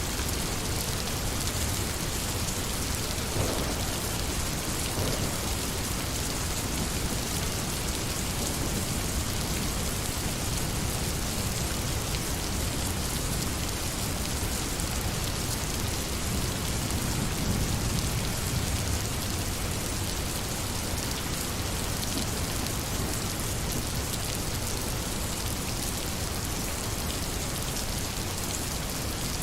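Steady rain falling, an even hiss of countless drops with a low rumble underneath.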